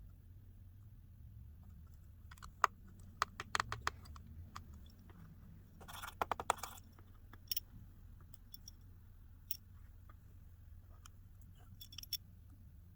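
Small, sharp clicks and taps of precision tools and tiny screws being handled on an opened iPhone: a quick run of clicks about two to four seconds in, a denser cluster around six seconds, then a few single ticks, over a faint low hum.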